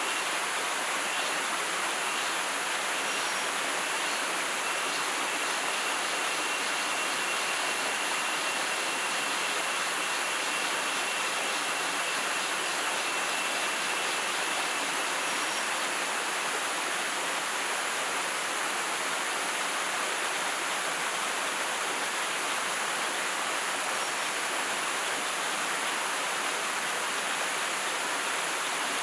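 Steady rushing of a forest river's flowing water, an even noise without pauses. A faint thin high tone rides over it for about the first half.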